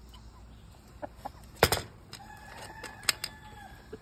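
A sharp knock, then a rooster crowing: one long, steady call of about a second and a half, with a few light clicks over it.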